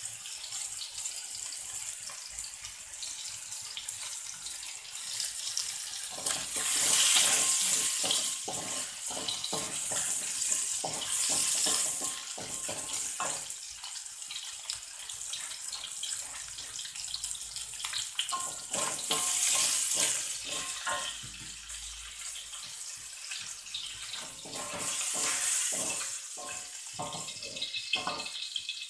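Sliced shallots sizzling in hot oil in a steel wok, with a wooden spatula scraping and knocking against the pan. The sizzle swells loudly about four times.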